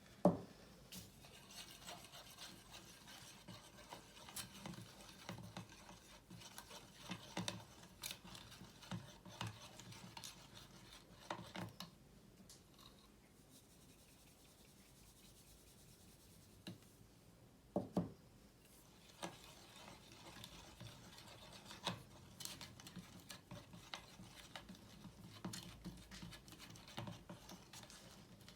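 Glue slime being mixed in a bowl: a utensil rubbing and scraping through the thick mixture, with irregular small clicks and a few sharper knocks against the bowl, one near the start and another about eighteen seconds in.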